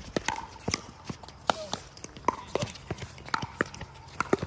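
Pickleball rally: a string of sharp pops as paddles strike the hollow plastic ball and the ball bounces on the hard court, about a dozen knocks at uneven spacing.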